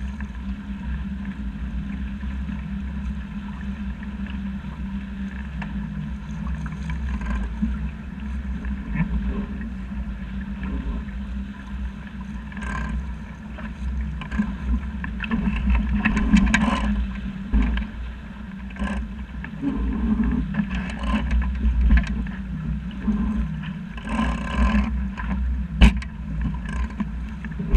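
Wind rumbling on the microphone over water rushing and slapping against a boat's hull as it sails through choppy water. Occasional sharper splashes and knocks come from wave slaps on the hull.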